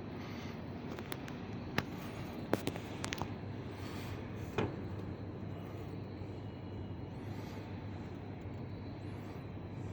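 Steady background noise with a few sharp clicks or knocks between about two and five seconds in.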